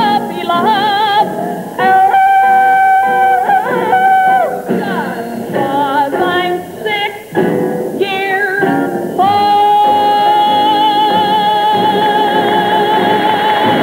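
A woman singing wordless comic vocal runs, with leaps and swoops in pitch that sound like yodeling, over musical accompaniment. About nine seconds in she takes a long held high note with vibrato, which she sustains.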